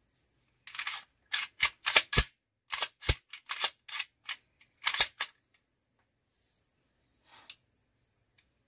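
Semi-automatic pistol being handled, its slide racked back and locked open for a chamber check: a quick run of a dozen or so sharp metallic clicks and clacks over about four seconds, the loudest about two, three and five seconds in.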